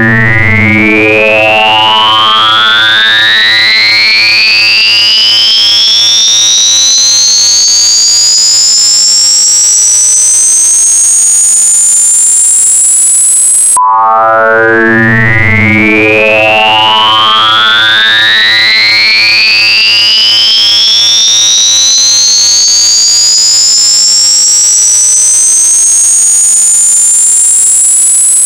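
Synthesized tinnitus-masking sound: two electronic tones glide slowly and steadily upward in pitch, from low to very high, over about 14 seconds, then cut off and start over from the bottom, with a lower pulsing tone underneath. The sweep runs twice.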